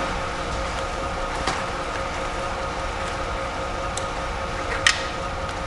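Steady mechanical hum carrying a couple of faint steady tones, with a few light clicks about a second and a half, four and five seconds in.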